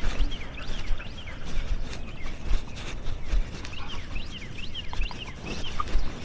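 Birds chirping in quick clusters of short high notes, twice, over irregular low thumps and rustling.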